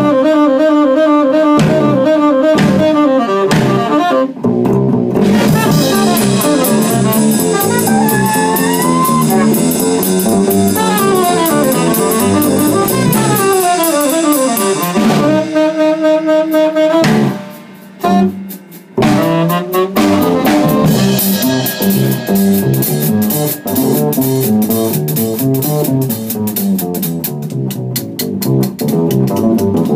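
Small jazz group of saxophone, double bass and drum kit playing a swing tune. The music breaks off briefly twice about halfway through, and near the end the saxophone drops out, leaving bass and drums.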